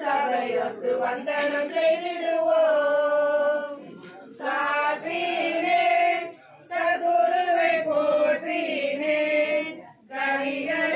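A group of women singing a Tamil kummi folk song together, without instruments, in phrases separated by short breaths.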